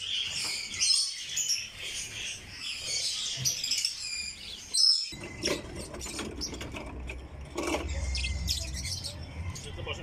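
Many small caged birds chirping and chattering densely together. Just before halfway it cuts off abruptly, and sparser chirps follow over a low rumble.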